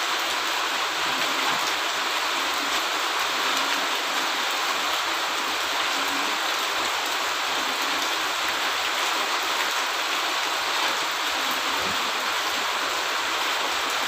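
A steady, even rushing hiss like heavy rain or running water, holding at one level throughout.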